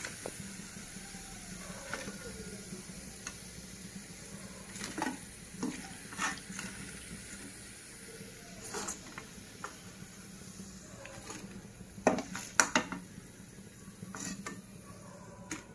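A perforated steel skimmer clinking and scraping against a kadai of hot oil as fried bondas are lifted out, over a faint sizzle of the oil. The clinks come irregularly, loudest twice in quick succession about twelve seconds in.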